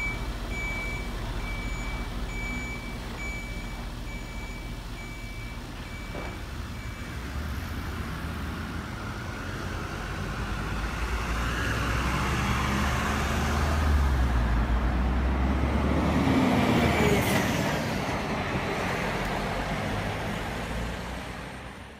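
Sound modules of RC model dump trucks: a steady beep-beep reversing alarm for the first several seconds, then a simulated diesel truck engine running and growing louder as a truck drives off, fading out at the end.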